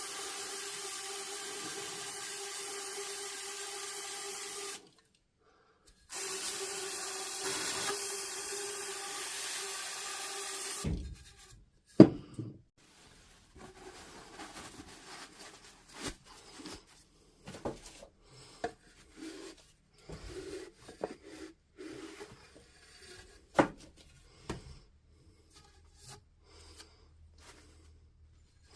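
Aerosol can of electrical contact cleaner spraying in two long hissing blasts, about five seconds each with a short pause between, to clean rubber residue out of the tube of an SDS rotary hammer's hammer mechanism. After it come scattered clicks, a sharp knock and light rubbing of parts being handled.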